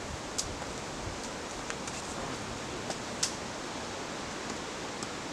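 Wood campfire crackling: a steady hiss with a scatter of sharp pops, the loudest about three seconds in.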